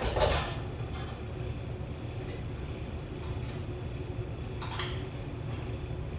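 Hands-on work on a truck: a sharp knock just after the start, a lighter knock about five seconds in and a few faint taps between, over a steady low hum.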